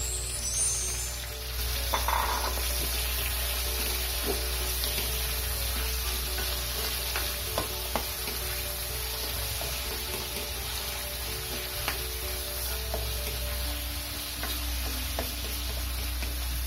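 Raw chicken drumsticks sizzling in hot oil with onion and garlic in a wok, stirred with a spatula that now and then scrapes and clicks against the pan.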